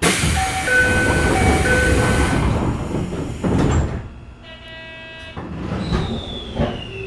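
Toei 5300 series train's sliding doors rushing shut, with a two-note door chime ringing twice over the noise and the doors thudding closed about three and a half seconds in. Then a short buzzing tone and a falling whine follow.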